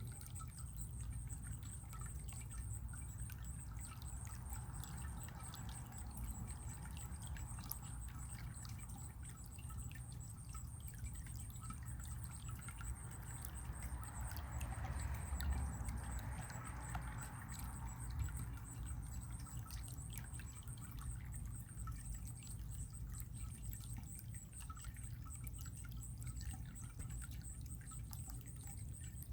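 Running water trickling and dripping steadily, with many small splashes; the flow grows briefly louder about halfway through.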